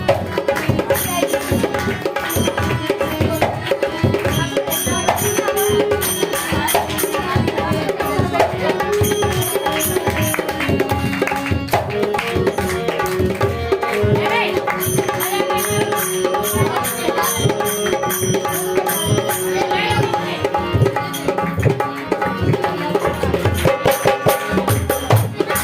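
Music: a fast, continuous hand-drum rhythm with a held melodic line over it.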